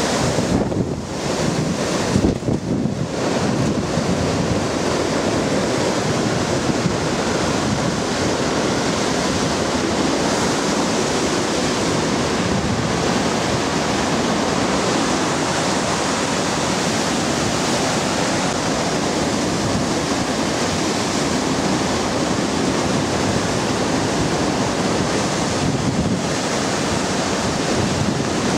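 Hurricane-force wind blowing steadily through the trees and shrubs, buffeting the microphone.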